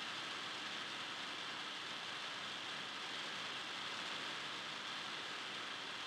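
Steady, even hiss with nothing distinct standing out: no ball bounces, whistles or voices.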